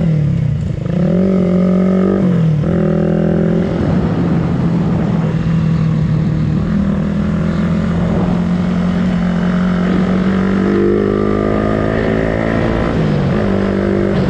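Suzuki Raider 150 Fi's single-cylinder four-stroke engine running under way. Its note dips and climbs again near the start, drops about two and a half seconds in, holds steady, then dips and rises once more near the end. Wind buffets the microphone throughout.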